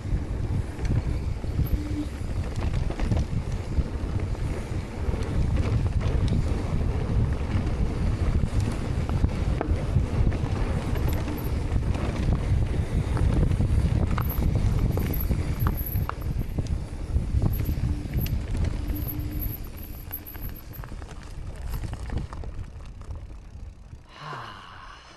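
Electric mountain bike riding over a dirt trail: a steady rough rumble of tyres on the ground and wind on the microphone, with many small knocks and rattles from the bike. It quietens over the last few seconds as the bike slows.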